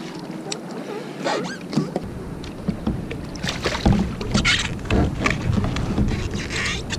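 Sea water splashing and sloshing beside a kayak as a thrashing lingcod is scooped into a landing net, with knocks of gear against the hull. A low wind rumble on the microphone runs under it from about two seconds in.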